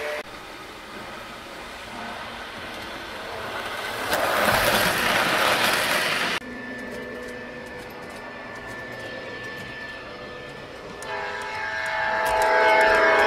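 O-gauge model train running on three-rail track, with a loud rumble of rolling wheels for a couple of seconds midway. About two seconds before the end, a model diesel locomotive sounds its horn, one chord held steady.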